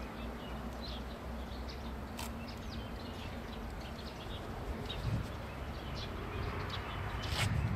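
Small birds chirping in short, scattered high calls over a low steady rumble.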